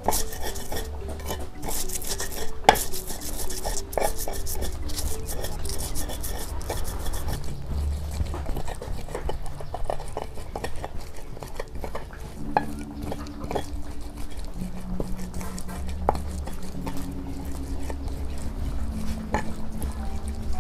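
Stone pestle (ulekan) grinding and pounding chilies, shallots, garlic and candlenuts in a stone mortar (cobek): irregular scraping with frequent sharp knocks of stone on stone as the spice paste is crushed.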